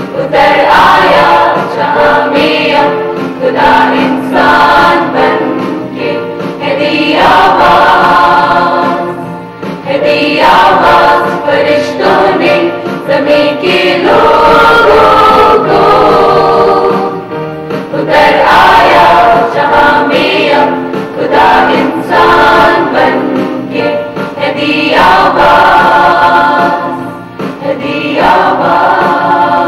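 Mixed choir of men and women singing together in phrases, with brief breaks between them.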